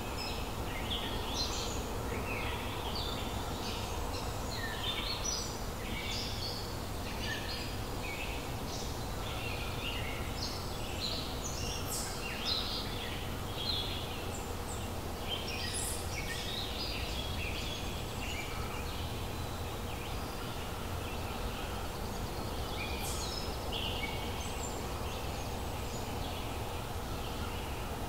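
Small birds chirping and calling over and over, many short calls overlapping, over a steady background noise.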